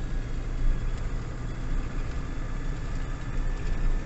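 GAZon Next truck's diesel engine idling steadily, heard from inside the cab, with a thin steady whistle over the low hum that the driver traces to the turbocharger.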